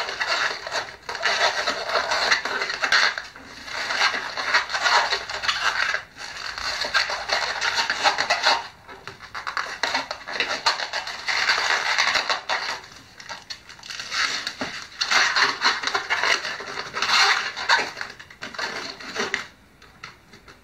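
Latex modelling balloon being twisted and handled into shape, rubber rubbing and scraping against itself and the hands in several stretches a few seconds long, with short pauses between.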